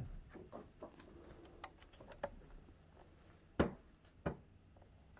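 Quiet room with a few scattered light clicks and taps, the sharpest about three and a half seconds in and another just after.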